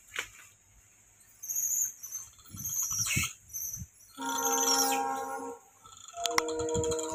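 Gray langurs calling: short high squeaks, then a loud held squeal about halfway through. Near the end come sharp clicks and further tones, which fit an added subscribe-button sound effect.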